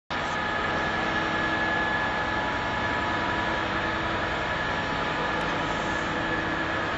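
Class 66 diesel-electric freight locomotive, with its EMD two-stroke V12, running as the train pulls out. Its covered hopper wagons roll past in a steady rumble with a constant engine drone.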